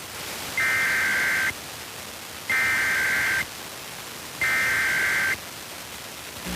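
Emergency Alert System SAME header: three identical bursts of high-pitched digital data warbling, each just under a second long and about a second apart, over a steady hiss. These data bursts open a Required Monthly Test.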